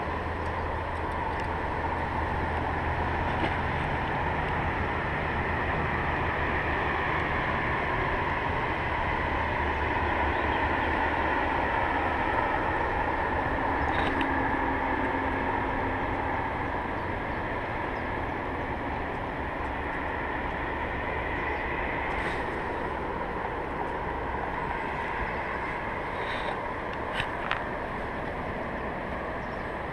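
Steady rushing of a fast river rapid, a dense roar of water with a low rumble that fades about halfway through, and a few faint clicks.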